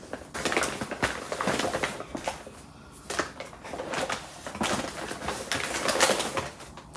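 Packaging rustling and crinkling as yarn skeins are handled and unpacked, in two bouts with a short lull a little over two seconds in.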